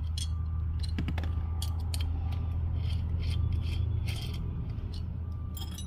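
T-handle hex key unscrewing cap screws from the holster mount's plates: scattered light clicks and scrapes of metal on metal, over a steady low hum.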